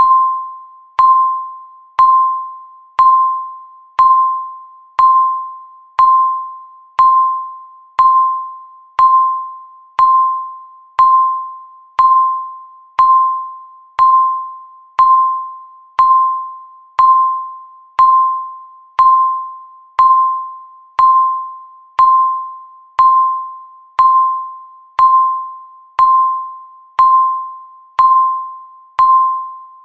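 Countdown timer beep: one clear, fading tone struck once every second, marking each second counted down.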